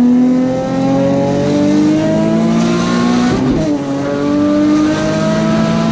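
Single-turbo Nissan 350Z's 3.5-litre V6 accelerating hard, its note rising steadily. About three and a half seconds in the pitch drops with an upshift, then rises again.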